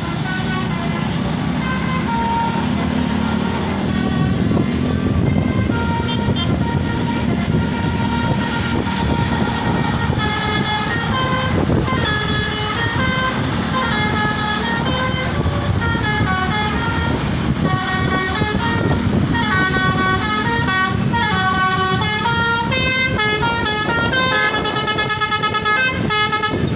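Indonesian tour bus's 'telolet' multi-tone musical horn, with engine and road noise underneath. A few single toots come first. From about ten seconds in it plays a continuous run of jingling tunes that step up and down in pitch, ending in fast staccato blasts.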